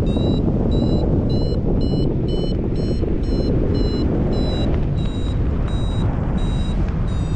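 Paragliding variometer beeping about twice a second, the climb tone that signals the wing is rising in lift. The beeps space out a little toward the end, over a steady rush of airflow on the microphone.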